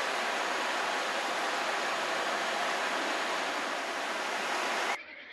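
A steady, loud rushing noise with no tone to it, which cuts off abruptly about five seconds in.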